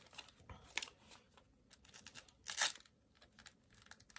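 Foam face pad being handled and pressed onto the plastic shell of DJI FPV goggles: soft scratchy rubbing and small clicks, with one louder scratchy rasp about two and a half seconds in.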